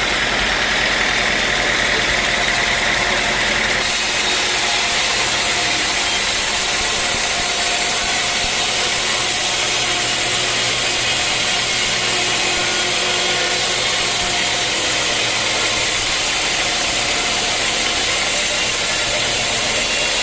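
Sawmill machinery running steadily and loudly, with a hissing high end that grows louder about four seconds in.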